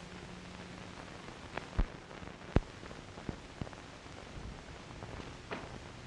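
Steady hiss of an old film soundtrack with a faint low hum, broken by a few sharp clicks, the loudest about two and a half seconds in.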